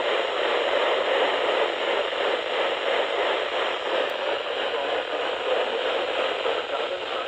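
Steady hiss of static from a weather radio receiver, with the broadcast warning voice lost under the noise as the signal drops out.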